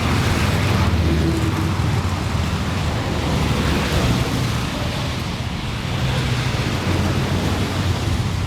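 City street traffic: a steady wash of passing cars and engines with a continuous low rumble and tyre noise.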